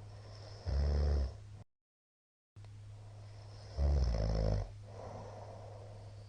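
A middle-aged man snoring in his sleep: two loud, low, rattling snores about three seconds apart, each under a second long, the second followed by a softer breath.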